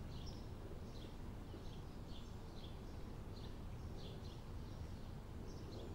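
Faint bird chirps, short calls repeating roughly twice a second, over a low steady hum.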